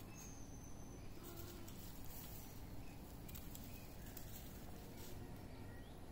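Faint outdoor ambience: a low steady background noise, with a brief thin high tone about half a second in and a few faint ticks.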